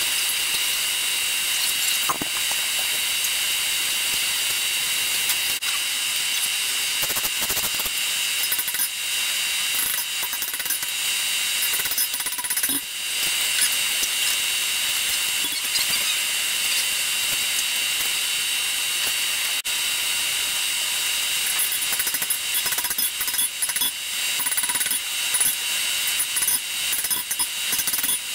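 Hand hammer striking a hot 5160 steel knife blade on an anvil during forging: scattered blows, coming thicker in the last few seconds. Beneath them runs a steady, loud machine whir.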